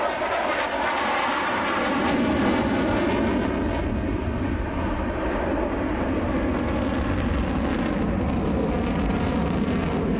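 Sukhoi Su-35 jet fighter's twin turbofan engines running at high power as it flies a display manoeuvre. A whine falls in pitch in the first second as the jet passes, then settles into a loud, steady, deep rumble.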